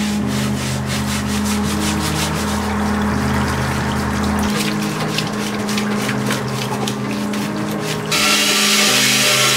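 A parts-washer brush scrubbing the inside of an oily steel engine oil pan in repeated rubbing strokes, with solvent flowing from the washer's brush hose. About eight seconds in it gives way suddenly to a louder, steady hiss.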